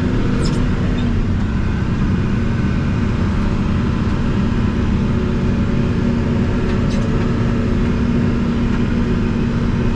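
Backhoe's diesel engine running at a steady pace, heard from inside its closed cab, with a couple of brief clicks or rattles, one just after the start and one about seven seconds in.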